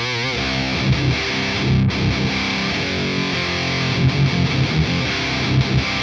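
Electric guitar fuzzed out through a BOSS OD-200 pedal in its fuzz mode, stacked in front of a tight, gated high-gain drive into a distorted amp. It opens with a held note shaken with wide vibrato, then plays a riff of short low chugging notes that stop abruptly.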